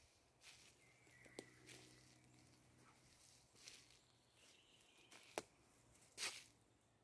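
Near silence: quiet forest ambience with a few faint short clicks, the two loudest near the end.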